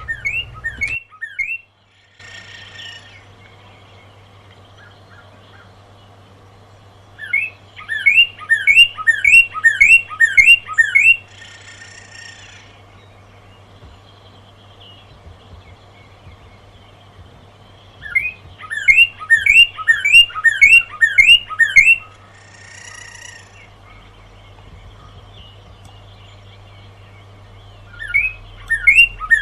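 Northern cardinal singing: phrases of loud down-slurred whistles repeated about three a second, each phrase lasting about four seconds, with pauses of several seconds between them. Short, harsher notes come in the gaps between phrases.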